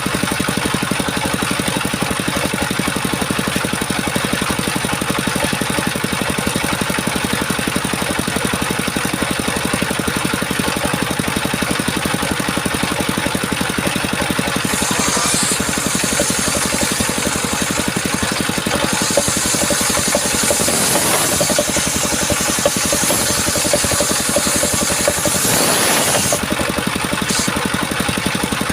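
Engine running steadily, driving a circular saw blade. From about halfway a high hissing joins for some twelve seconds as the blade cuts through wood, swelling briefly just before it stops.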